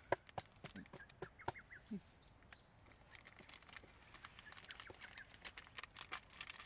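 Birds chirping in short calls, with scattered light clicks and taps throughout.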